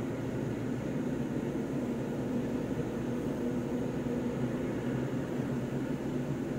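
Steady low drone of engine and tyre noise heard from inside a moving vehicle's cabin, with a faint steady hum and no sudden sounds.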